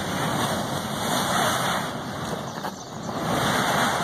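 Volcanic gas jetting out of a newly opened lava fissure with a steady rushing noise, like a blowtorch. It eases off briefly about three seconds in, then builds again.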